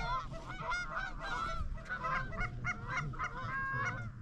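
A flock of geese honking, many calls overlapping in a continuous chorus over a low rumble.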